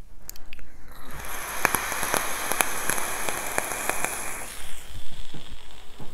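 Vape coil in a Druga rebuildable dripping atomiser firing on freshly dripped e-liquid during a long draw. The juice sizzles and crackles with many sharp pops for about three and a half seconds, then stops.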